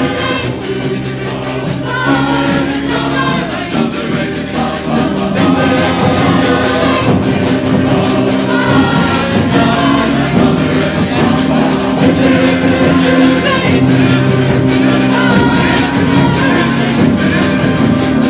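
A large amateur choir sings a song over a percussion band drumming a steady, fast beat.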